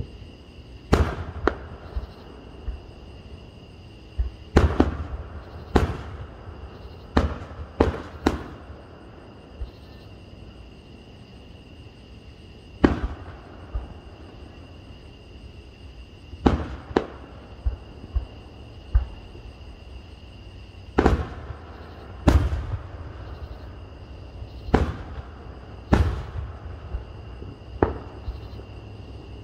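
Aerial fireworks shells bursting overhead: about fifteen sharp bangs at irregular intervals, some in quick pairs or clusters, several trailing off in a short echo.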